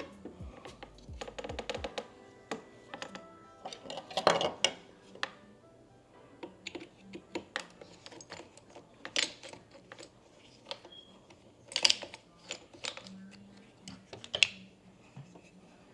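Irregular clicks, taps and clatter of small tools and parts being handled while working on wiring, with a few louder knocks.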